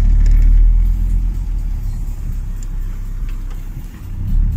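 Car's road and engine rumble heard from inside the cabin while driving, a deep steady drone that eases off after about a second and swells again near the end.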